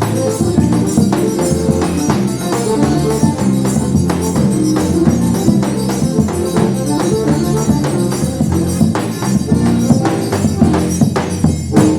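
Live forró pé-de-serra trio playing: an accordion melody over a steady beat of zabumba drum and triangle.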